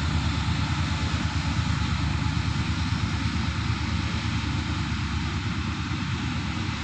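Diesel-electric locomotive engine running under power as it pulls a passenger train away from the station, a steady low drone that eases slightly toward the end.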